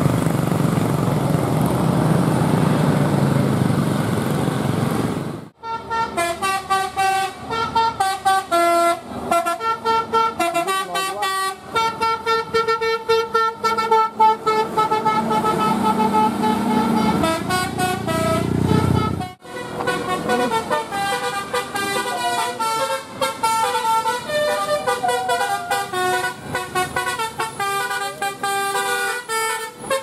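A bus's diesel engine running loud for about five seconds, then, after an abrupt cut, a bus 'telolet' musical horn playing quick runs of stepped notes. About two-thirds of the way through a second cut brings in another telolet horn melody.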